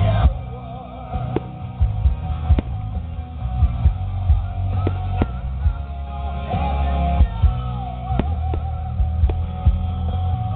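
Rock music with a singing voice and guitar over a heavy bass, punctuated by frequent sharp hits.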